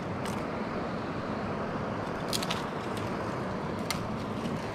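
Steady rush of running creek water over rocks, with a few short clicks and scrapes from handling, one about two seconds in.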